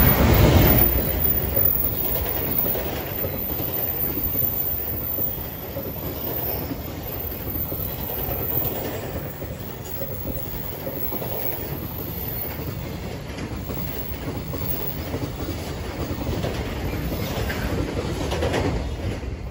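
An EF510 electric locomotive hauling a freight container train passes close by. The sound is loudest as the locomotive goes by at the start. A long, steady run of container wagons then rolls over the rails, and the noise drops away as the last wagon passes at the very end.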